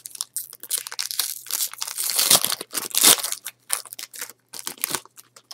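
A foil trading-card pack wrapper being crinkled and torn open, with an irregular run of crackles, loudest about two and a half and three seconds in.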